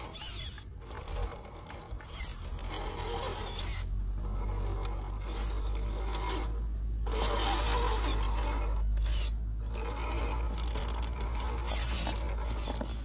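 A 1/10-scale RC rock crawler's electric motor and gearbox whirring as it crawls slowly down a dirt bank, with its tyres scraping over dry soil. A steady low rumble runs underneath from about four seconds in.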